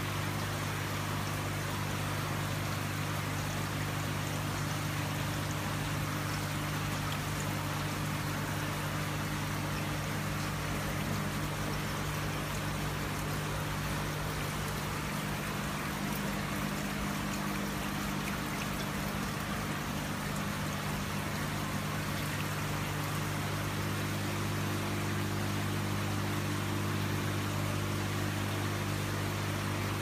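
Water from a floor-standing glass-panel waterfall fountain sheeting down the glass and falling into its pebble-filled reservoir: a steady, even rush of running water. A steady low hum runs underneath.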